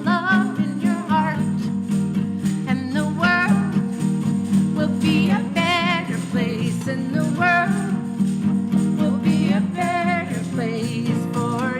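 A live song: a solo voice singing with vibrato over steady, sustained instrumental accompaniment.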